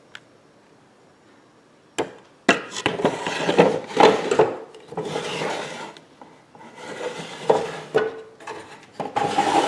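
Solid-wood drawers of a 1926 Singer sewing machine cabinet being slid in and out, wood rubbing on wood in several strokes, beginning with a sharp knock about two seconds in.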